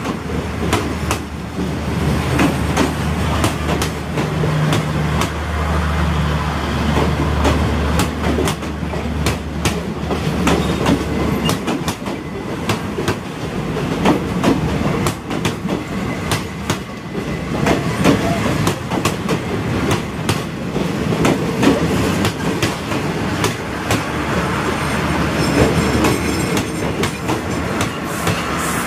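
Thai passenger train coaches rolling steadily past along a platform: the wheels rumble and clatter over the rail joints in a quick run of ticks. A low hum runs under the first ten seconds or so, then fades.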